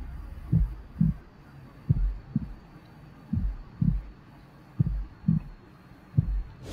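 Heartbeat sound effect for suspense: five slow lub-dub double thumps, low and evenly spaced, over a faint low hum.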